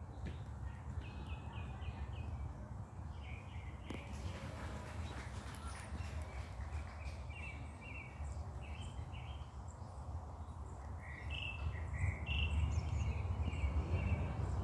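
Forest birds chirping: short calls repeated in quick clusters, over a steady low rumble that grows louder near the end.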